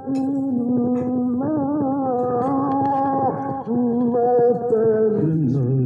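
A recorded solo voice chanting long, wavering notes, played through the Sony FH-411R double cassette deck's speaker; the volume jumps up right at the start.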